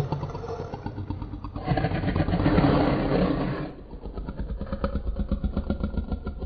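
Indominus Rex creature vocal effect: a low, rough growl that swells louder about two seconds in, then settles into a rapid pulsing, rattling rumble.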